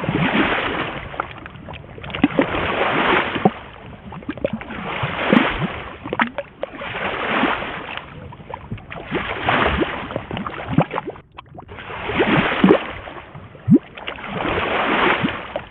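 Rowing with oars through water in a slow, even rhythm: a swell of splashing and swishing about every two seconds, one for each stroke.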